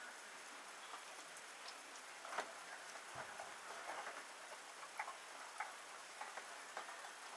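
Faint scattered soft ticks and smacks over a steady hiss: a horse licking and lipping an offered remedy from a hand, with small plastic remedy bottles being handled.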